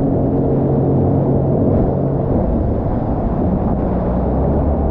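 Jet ski engine running at speed, with a rush of wind and water. The engine note holds steady for about two seconds, then shifts in pitch.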